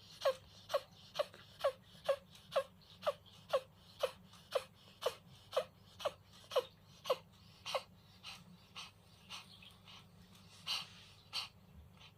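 A cat making short, sharp, noisy breaths with a falling pitch, about two a second in a steady run, weakening and turning irregular about eight seconds in. It is a recurring respiratory fit that the owner takes for reverse sneezing, though it could be coughing or sneezing.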